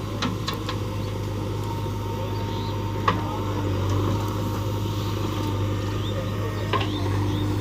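Heavy diesel engine running steadily under load, with a few sharp knocks, the loudest about three seconds in.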